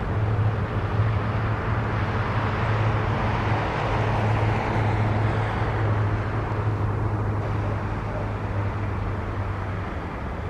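A Czech-built ChS7 electric locomotive hauling a passenger train on the approach: a steady rumble with a constant low hum underneath.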